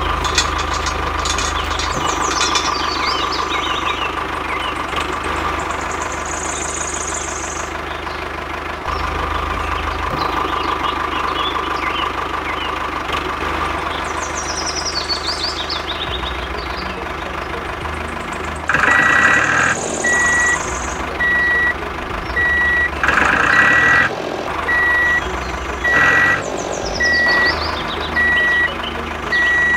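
Tractor engine running steadily. About two-thirds of the way in, a repeating reversing beep starts over it, the warning for the tractor backing up.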